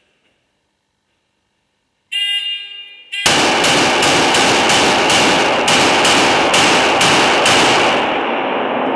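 Pistols firing on an indoor range: about a dozen shots at two to three a second, each one ringing on in heavy reverberation so the shots run together. A short tonal start signal sounds just before the first shot, after a couple of seconds of near silence.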